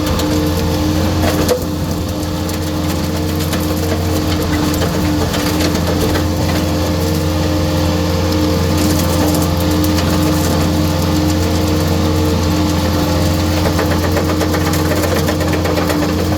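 Skid steer running steadily with a continuous low engine hum and a few steady machine tones, its grinder saw attachment working in thick small trees.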